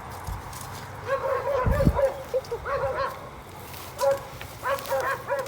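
A dog yipping and whimpering in runs of short, high calls. There is a low thud a little under two seconds in.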